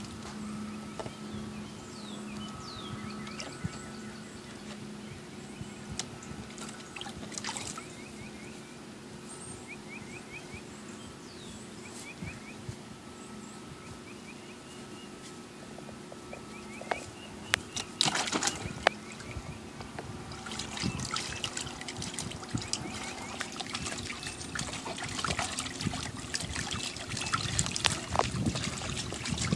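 A small dog splashing and wading in a plastic kiddie pool, water sloshing and dripping, busiest in the last third with a few sharp knocks just before. A steady low hum runs underneath.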